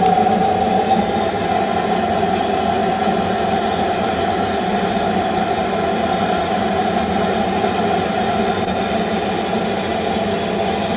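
An engine running steadily: a constant hum with several unchanging tones.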